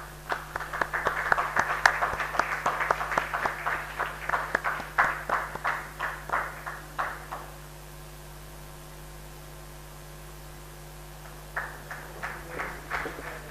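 Scattered applause from a small audience, the separate claps distinct, dying away after about seven seconds and picking up again near the end. A steady low electrical hum runs underneath.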